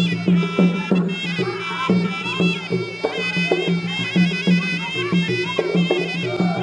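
Traditional Khmer boxing music: a sralai, the Khmer reed oboe, plays a wavering, ornamented melody over a steady, quick drum beat.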